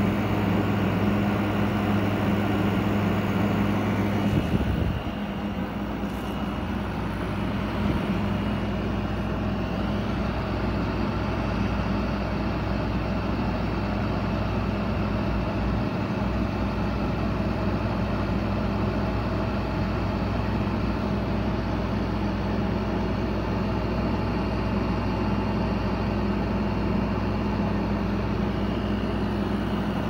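Frigidaire 6,000 BTU window air conditioner (model FFRE0633S1) running in cool mode: a steady hum under an even rush of fan air, with a faint high whine. The low hum eases a little about five seconds in, then holds steady.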